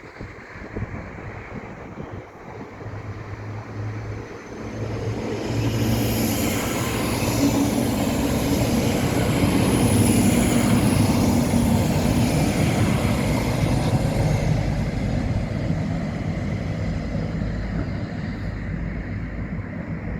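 A train passing by, growing louder to a peak about ten seconds in and then slowly fading, with a steady low engine hum under the rail noise.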